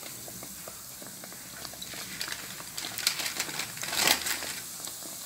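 Rounds of yeast dough deep-frying in hot oil: a steady sizzle with scattered crackling pops, growing louder about three to four seconds in as another round goes into the oil.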